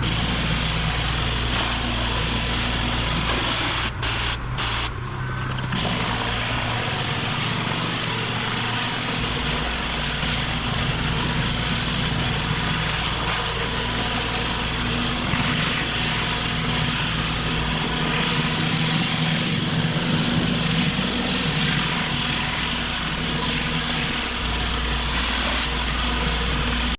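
Petrol pressure washer running steadily with its water jet spraying hard against paving, a constant engine drone under a loud hiss. The sound breaks off briefly a few times about four to five seconds in.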